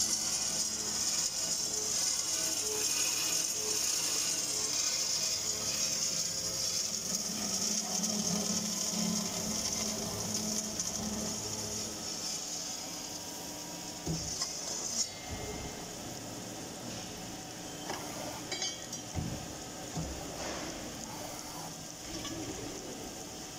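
CNC circular cold saw cutting through metal tube, giving a steady high-pitched whine from the blade in the cut. The whine stops about halfway through. A few short clunks from the machine follow, with the saw still running.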